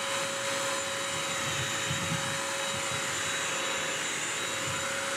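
BISSELL Crosswave wet/dry vacuum running steadily, a motor whine over its suction rush, as its pet brush roll picks up pet hair from the floor.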